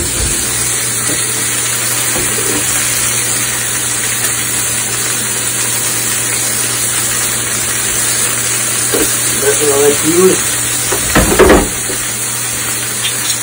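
Steady sizzle of a ribeye steak frying in its own fat in a hot cast iron pan, with a wire masher working mashed potatoes in a stainless steel pot.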